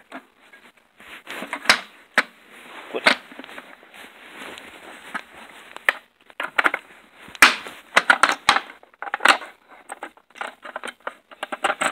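Handling noise from taking apart a plastic bathroom scale: a run of sharp clicks and knocks with scraping in between as a load cell is pried and pulled out of its rubber cup.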